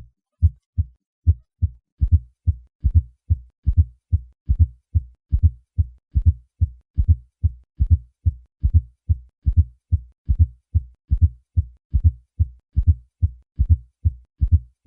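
Heart sounds heard through a stethoscope: low, dull thuds in a steady rhythm, with a fourth heart sound (S4, atrial gallop) falling just before each lub-dub of S1 and S2, the heart made to beat harder by a few sit-ups. The S4 is the sign of a stiff, poorly compliant left ventricle, as in hypertension.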